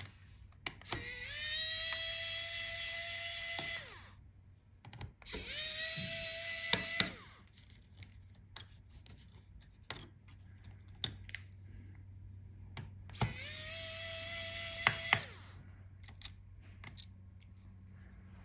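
Small electric screwdriver backing out the screws of a laptop's SSD cover in three runs. Each run rises quickly to a steady whine and lasts two to three seconds. Small clicks and taps of handling come between the runs.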